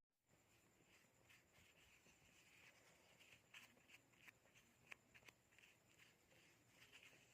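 Faint soft scratching with scattered light taps and clicks, one sharper click about five seconds in.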